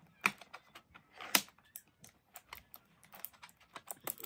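Fingernails picking and tapping at a cardboard box of paint tubes while trying to open it: a run of small clicks and scrapes, with two louder clicks about a quarter second and a second and a half in.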